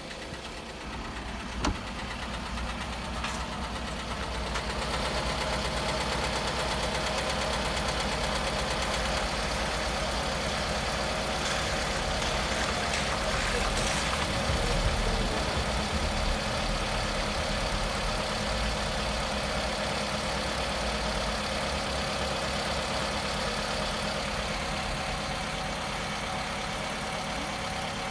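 Toyota Camry engine idling cold, with a knock that shows while the engine is cold. A sharp click comes about two seconds in, and the engine gets louder over the next few seconds, then runs steadily.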